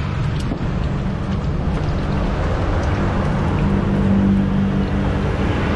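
Road traffic: a motor engine running close by with a steady hum that swells a little around the middle, over a steady hiss of street noise.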